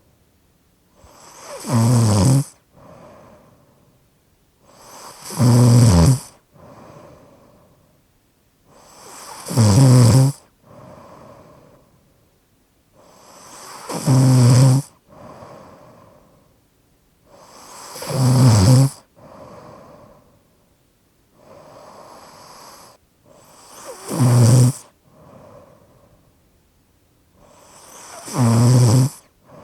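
A person snoring with a slightly obstructed airway: a loud, rough snore about every four seconds, seven in all, each swelling up and followed by a softer breath.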